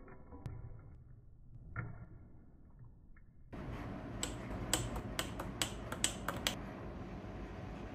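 Metal spoon stirring a drink in a glass mug, clinking sharply against the glass about eight times over two or three seconds, over a steady hiss. Before that, a faint pour of thick mango-pineapple juice into a glass.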